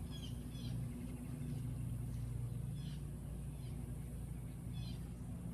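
A few short bird chirps over a steady low hum.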